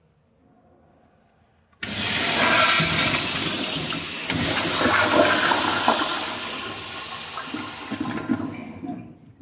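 Kohler Kingston wall-hung toilet flushing through its chrome flushometer valve. The valve opens about two seconds in with a sudden, loud rush of water that holds for several seconds and tails off near the end.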